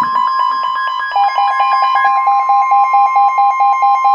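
Weather radio sounding a severe thunderstorm warning alert: a steady warning alarm tone with fast beeping over it, the beeps dropping to a lower pitch about a second in.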